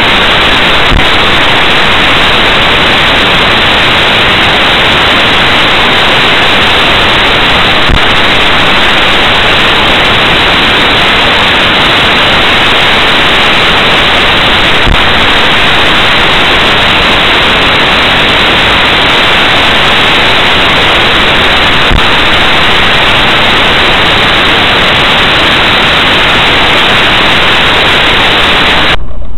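Loud, steady hiss of static from a cheap dash camera's audio track, with a faint click about every seven seconds and a brief dropout near the end.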